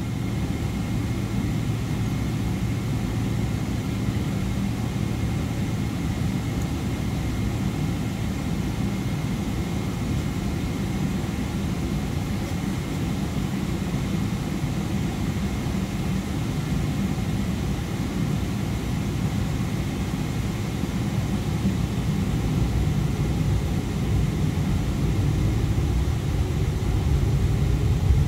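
Airliner jet engines heard from inside the cabin: a steady low rumble with a faint high whine while the plane holds on the runway. Near the end the engines grow louder with a rising pitch as they spool up for the takeoff roll.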